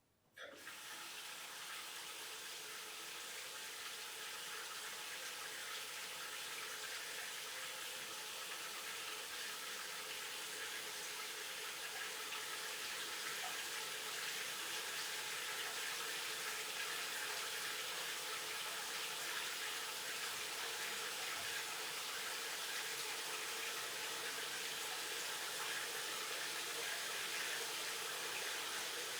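Water running from a tap, turned on about half a second in, then running steadily and growing gradually louder.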